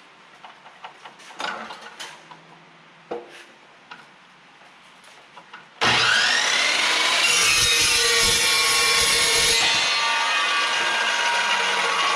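A few light taps and clicks of metal stock being handled, then about halfway through a power saw starts suddenly, its whine rising as it spins up, and runs loudly and steadily as it cuts steel stock.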